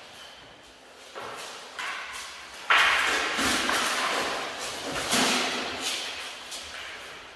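Wooden training spears clashing and striking armour during armoured sparring: a series of sharp knocks, the loudest about three seconds in and another about five seconds in, each echoing in a large hall.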